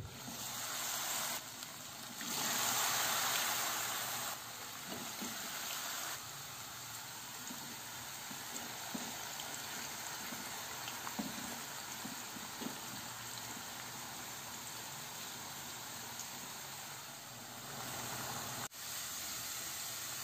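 Potato sticks deep-frying in hot oil in a steel pot: a steady sizzle with small pops. The sizzle surges louder for a couple of seconds near the start.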